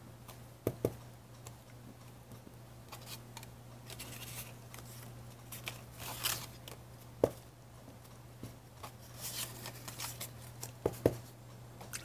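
Small paper tags being handled on a tabletop: soft rustling and shuffling of card, with a few light taps as tags are set down, over a faint steady low hum.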